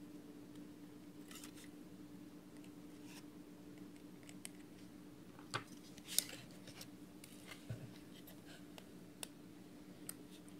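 Faint clicks and light scrapes of a vape box mod and its tank being handled, with a few sharper clicks in the second half, over a steady low hum.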